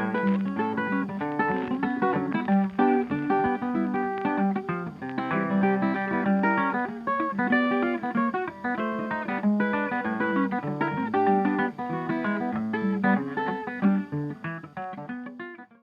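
Background music: plucked acoustic guitar playing a quick line of notes, fading out near the end.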